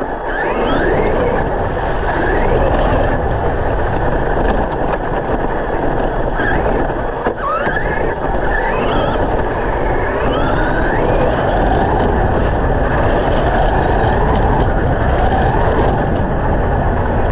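Electric motors of RC monster trucks whining up and down in pitch as the throttle is worked, over a loud, steady rumbling noise.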